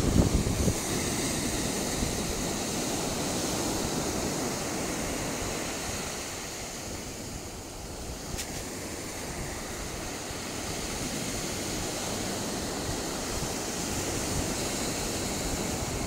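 Ocean surf and wind: a steady, even wash of noise with no distinct wave breaks, dipping a little about halfway through.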